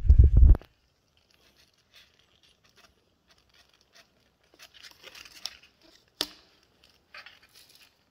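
A kitten's claws scratching and scrabbling at a cardboard box: scattered faint rustles with a sharp tap about six seconds in. A few loud low bumps open the stretch.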